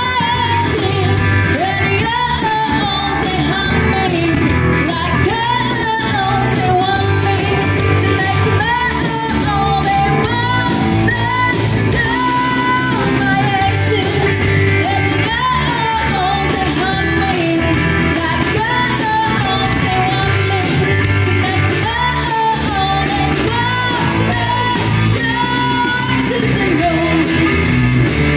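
Live rock band playing: a lead vocalist singing over bass guitar and drums.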